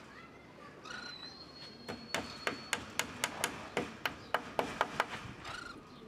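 A hammer tapping small nails to fix wire mesh onto a wooden cage frame: a quick run of light, sharp strikes, about four a second, starting about two seconds in and lasting some three seconds.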